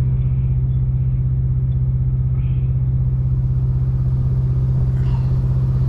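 Semi-truck's diesel engine idling steadily, an even low drone heard close up with the engine compartment open.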